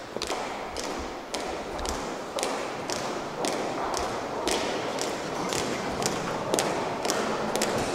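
Footsteps on a hard surface: irregular sharp taps, about two or three a second, over a steady background hiss.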